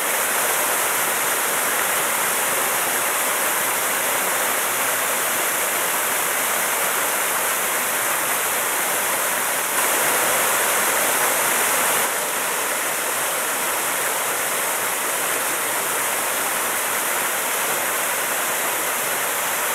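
Waterfall pouring into a plunge pool, a steady rushing of water, briefly a little louder about ten seconds in.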